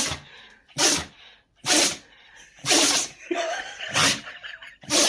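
A dog sneezing over and over, a run of about six short, sharp sneezes roughly a second apart.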